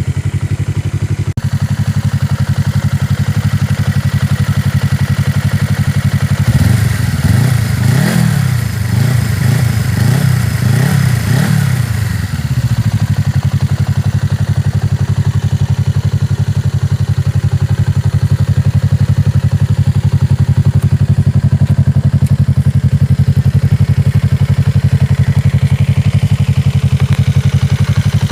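2015 Suzuki Inazuma 250's 248 cc parallel-twin engine idling through twin aftermarket Akrapovic-style mufflers. About six seconds in it is revved in a quick run of about five throttle blips, then settles back to a steady idle.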